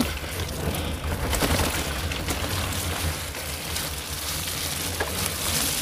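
Off-road motor vehicle driving fast along a wet forest track: a steady low engine drone under rushing wind and the wet hiss of tyres on mud and water.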